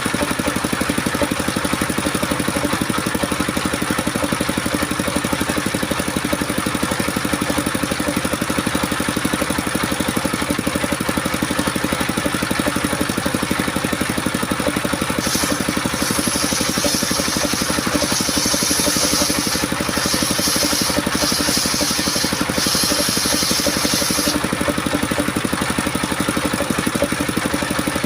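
Engine-driven homemade circular saw running steadily. From about halfway through, the blade cuts coconut wood, adding a high, hissing rasp that stops and starts several times and briefly returns near the end.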